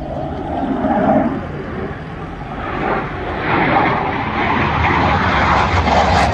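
Military fighter jet flying past, its engine noise a rushing roar that grows louder from about halfway through.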